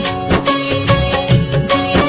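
Instrumental interlude of a Punjabi devotional song, a melody instrument over a steady drum beat of about three strikes a second, with no singing.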